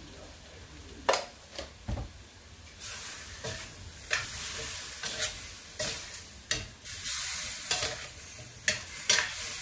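Chicken pieces sautéing in a pan, sizzling while being stirred, with the cooking utensil scraping and knocking against the pan a dozen or so times at uneven intervals. The sizzle grows louder about three seconds in.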